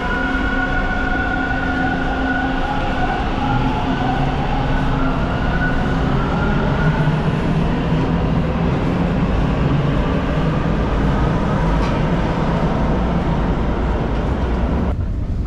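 Toronto subway train running on its tracks: a steady rumble with whining tones that drift slowly in pitch. The higher part of the noise drops away near the end.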